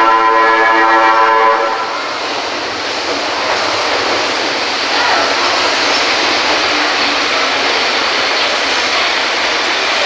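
A Meitetsu 7500 series Panorama Car's music horn holds a chord that cuts off about a second and a half in. Then comes the steady rushing noise of the train running in along an underground station platform.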